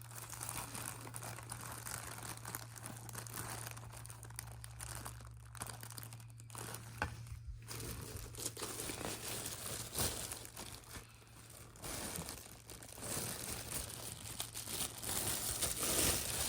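Packaging crinkling and rustling as it is handled and unwrapped, with a few light knocks.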